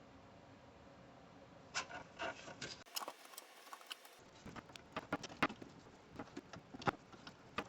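Faint, irregular light clicks and taps of a hand tool working loose the small bolts on a Glowforge laser's gantry, starting about two seconds in.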